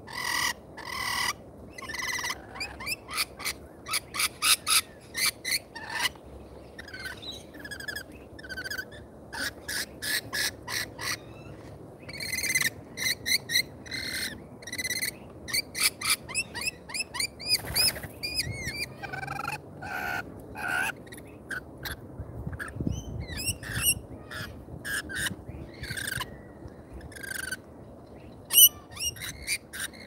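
Rainbow lorikeets calling: a rapid, almost continuous string of short, shrill screeches.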